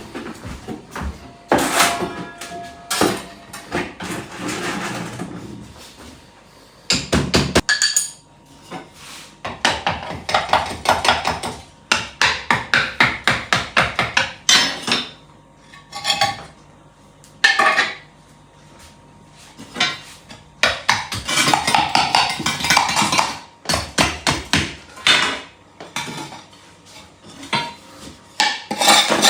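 Bursts of rapid hard knocking, several strikes a second, with short pauses between, like a tool striking a hard surface.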